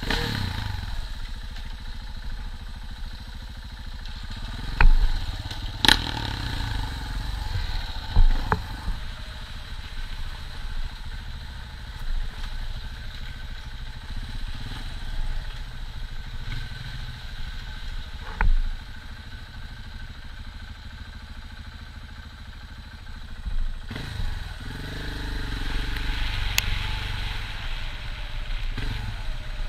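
KTM 690 single-cylinder dual-sport motorcycle running as it is ridden along a rough dirt trail, with several sharp knocks and clatters from the bike over bumps, the loudest about five and six seconds in. The engine grows louder for the last few seconds.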